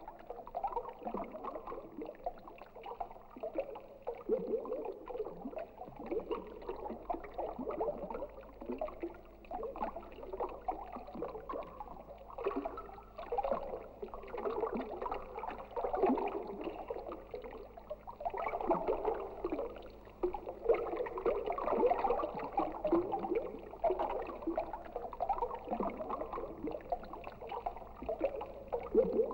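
Gurgling, swirling water sounds that rise and fall in waves, with a faint steady low hum underneath.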